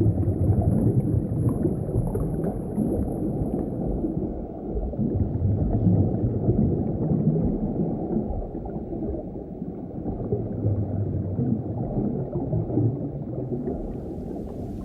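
Muffled underwater gurgling and bubbling of water, a steady low churning sound, with a faint high-pitched whine over it for the first few seconds.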